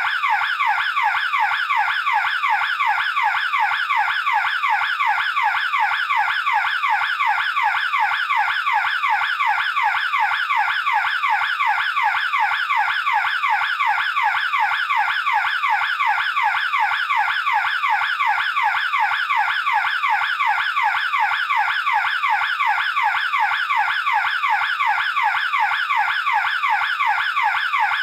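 Burglar alarm siren sounding continuously: a loud electronic tone sweeping up and down in pitch several times a second, unbroken and even.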